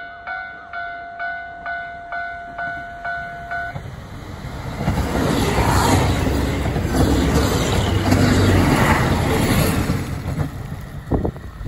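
A KiHa 183 series diesel limited express passes through a station at speed, the sound of its engines and wheels swelling to a loud rush for about six seconds. At first an electronic two-tone warning bell clangs about twice a second, stopping a few seconds in as the train arrives.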